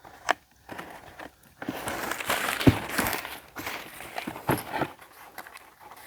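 Handling noise as a chainsaw is picked up and turned over: a stretch of rustling and scraping about two seconds in, with a few separate knocks and clunks.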